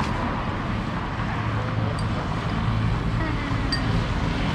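Steady street traffic noise of cars and motorbikes passing on the road, with a constant low engine rumble.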